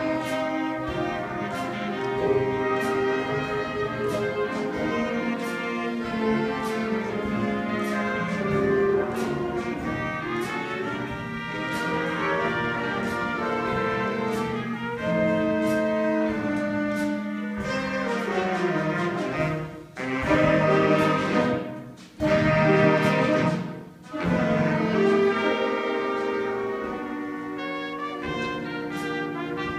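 Student jazz band playing: saxophones, trumpets and trombone over a drum kit with steady cymbal taps. A little past the middle the whole band plays a few loud short chords, each broken off by brief silences, then goes back to playing steadily.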